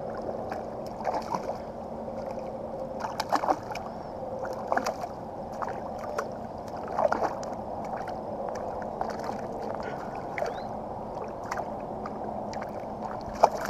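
Water lapping against a kayak hull, with scattered sharp splashes and knocks from a hooked smallmouth bass thrashing at the surface beside the kayak. The loudest come about three and a half seconds in, about seven seconds in, and near the end.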